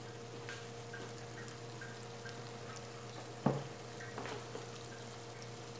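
Potato and chickpea curry cooking quietly in a pan, with a steady low hum, faint ticks about twice a second, and one sharp click about halfway through.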